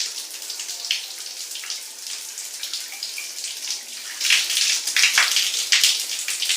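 Shower running: a steady spray of water splattering, with louder splashing in the second half.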